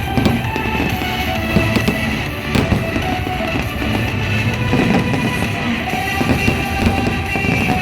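Rock-style music with drums and electric guitar playing as a fireworks soundtrack, with a sharp firework bang about two and a half seconds in.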